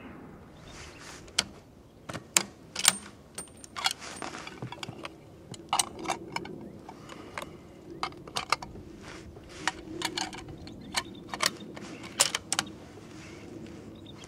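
An irregular string of a couple of dozen sharp, light clicks and ticks over a faint steady low hum.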